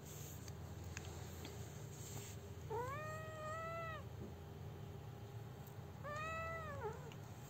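Month-old kitten mewing twice, two drawn-out high calls about a second each, the second ending with a downward drop.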